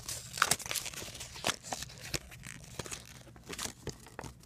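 Paper and packaging crinkling and rustling in hand, in irregular crackles, as a folded collector's checklist from a blind bag is pulled out and unfolded.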